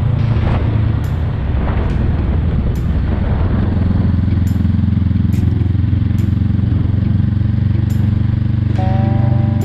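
Honda Rebel 500's 471 cc parallel-twin engine breathing through an aftermarket Mussari muffler, running at steady cruising revs while the bike rides through a curve. The exhaust note is rougher at first and settles into a steadier hum about four seconds in.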